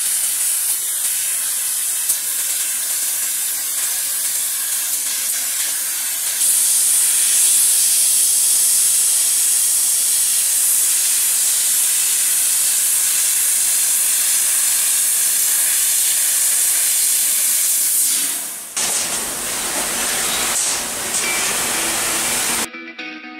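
Laser cutting machine cutting sheet metal: a steady, loud, high hiss of the gas jet through the cutting head, stepping up in level about six seconds in. Near the end the hiss turns rougher and fuller.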